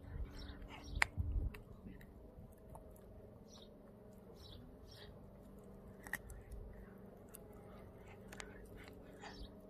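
Pomeranian crunching and chewing a raw duck foot, with the loudest crunches about a second in. After that come quieter gnawing and licking with a few sharp crunches.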